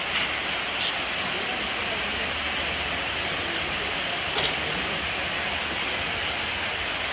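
Steady background hiss with three light clicks and knocks, as of power tools being handled.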